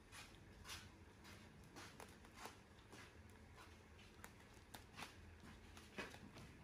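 Near silence with faint, scattered scuffs and taps: two kittens' paws scrabbling on a wooden slat floor and woven plastic mat as they tussle.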